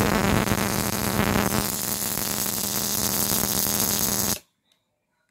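Ignition coil tester firing two ignition coils: a loud buzzing crackle of high-voltage sparks over a steady hum, cutting off suddenly about four seconds in. Both coils are sparking, the sign that they work, though one is a bit weak.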